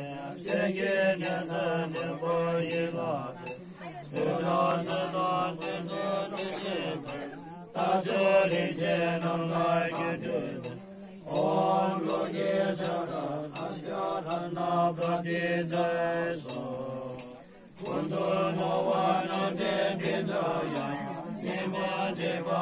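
Tibetan Buddhist monks chanting prayers together in unison, in phrases of a few seconds each with short breaks for breath.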